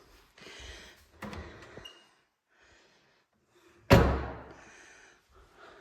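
A door slamming shut once, about four seconds in, with a short ringing decay, after a couple of soft noises.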